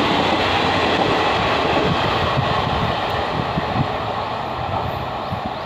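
Train with a track recording car passing at speed: the steady rumble of coach wheels running on the rails, slowly fading as the train moves away.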